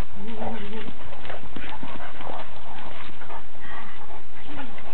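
Two dogs play-fighting on bare earth: scuffling and paw steps, with a short wavering vocal sound about a quarter second in and a brief one near the end.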